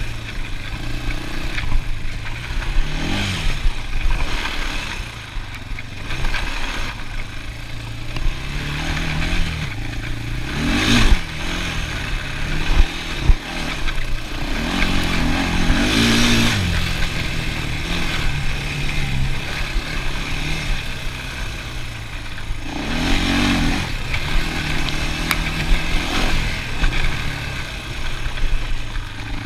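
ATV engine running under way, revving up and easing off several times so its pitch rises and falls, with two sharp clattering knocks a little before halfway.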